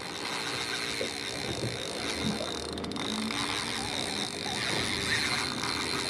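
Fishing reel being worked against a fish on a hard-bent rod, its gears giving a fine, fast ticking, over a steady low background hum.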